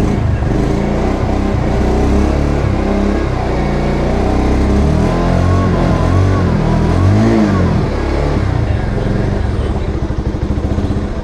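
Bajaj Pulsar 150 Neon's single-cylinder four-stroke engine heard at the silencer tailpipe, running steadily, revved up and back down a few times around the middle, then settling back to idle near the end.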